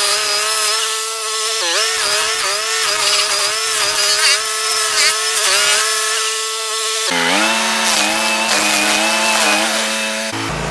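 Toro STX-38 stump grinder running hard as its cutting wheel grinds into a stump, with a rasping of wood being chewed up and chips thrown. The engine pitch sags sharply as the wheel bites in, about two seconds in and again about seven seconds in: the engine labouring under the cut.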